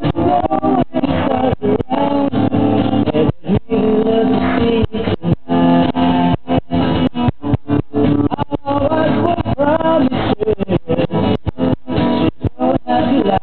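Song playing: guitar with a singing voice, cut by many brief dropouts.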